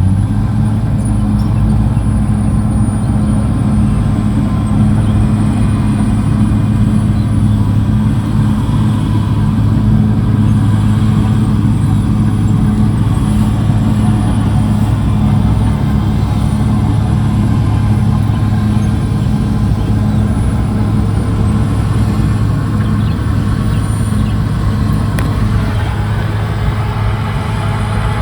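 CAT D6R XL crawler bulldozer's diesel engine running steadily with an even, unbroken drone, a thin high whine above it.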